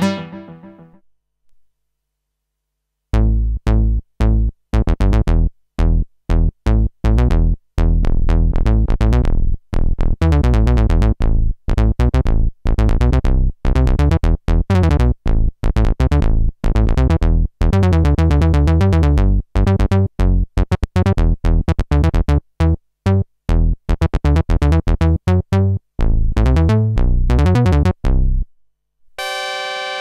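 Arturia MatrixBrute analog synthesizer playing a bass-heavy patch in a long run of short, clipped notes that start and stop abruptly, after a brief silence. Just before the end a new held note with a different, brighter tone begins.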